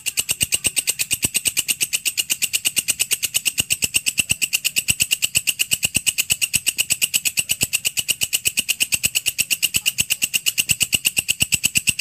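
Walang kecek (belalang kerik) insect calling: a fast, even train of sharp, high-pitched chirps, about eight a second, kept up without a break.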